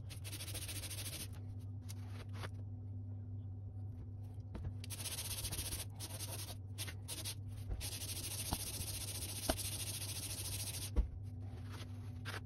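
Cylinder head of a Kohler LH775 engine being slid back and forth on 400-grit sandpaper over a glass plate: an abrasive rasping in spells of strokes with short pauses, stopping near the end, with a few light knocks. The head's gasket face is being lapped flat until it is all one colour.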